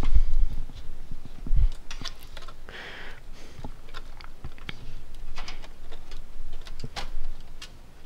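Irregular plastic clicks, knocks and rattles of hands working the graphics card's power-cable connectors inside a computer case, trying to work the clipped plugs loose, with a couple of dull thumps in the first two seconds.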